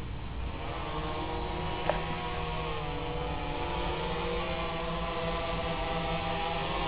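Multirotor drone's motors and propellers whining in flight, the pitch of the whine drifting slowly up and down as the rotor speeds change. There is a single sharp click about two seconds in.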